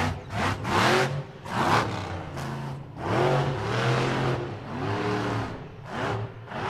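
Losi LMT radio-controlled monster truck's brushless electric motor whining up and down in repeated throttle bursts, the pitch rising and falling with each, along with a rush of noise at each burst.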